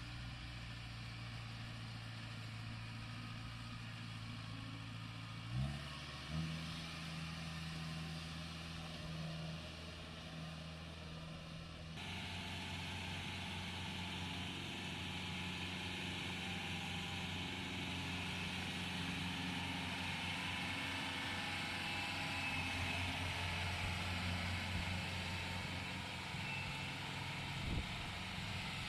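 Diesel engines of crawler-track rice combine harvesters running steadily. The engine note steps up with a short knock about six seconds in. After an abrupt change near twelve seconds, a Kubota combine's engine runs louder, with a brief knock near the end.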